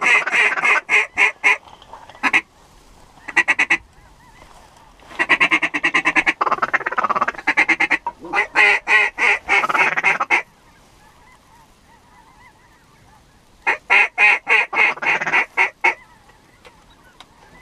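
Hand-blown waterfowl calls sounding up close, in loud runs of rapid quacking notes, about five a second, with short pauses between runs. They are calling in waterfowl approaching the blind.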